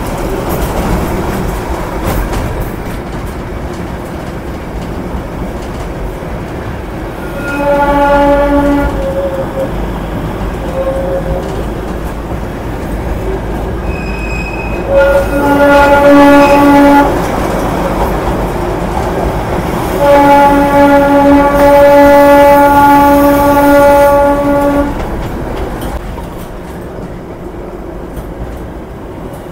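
Darjeeling Himalayan Railway toy train running with a steady rumble and clatter, its diesel locomotive horn sounding three times: a short blast about eight seconds in, another around fifteen seconds in, and a long blast of about five seconds from twenty seconds in. A brief high beep comes just before the second blast.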